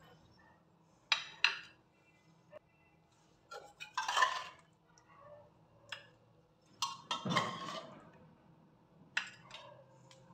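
Small glass and ceramic bowls being set down on a ceramic serving plate: sharp clinks about a second in and again near the end, with two longer clattering noises around four and seven seconds in.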